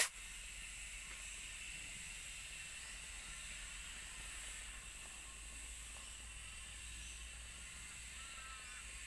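Steady faint hiss, with one sharp click right at the start.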